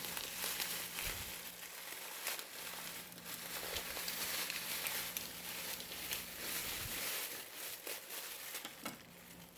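Plastic packaging crinkling and rustling with small tearing sounds as a package is worked open by hand.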